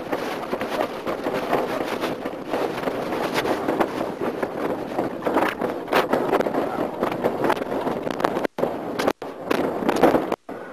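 Wind rushing and buffeting on the microphone of an engine-off light plane as it rolls and glides down a rough grassy slope, full of rapid crackles and knocks. The sound cuts out completely for brief moments a few times near the end.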